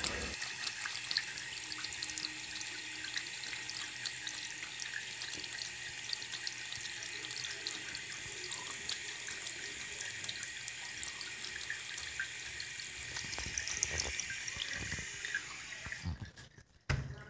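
Steady rushing hiss with many faint crackles, like water running from a tap. It drops out sharply about a second before the end.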